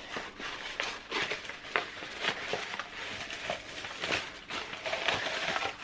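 Packaging crinkling and rustling as a wrapped champagne glass is unwrapped by hand, with irregular small crackles and clicks.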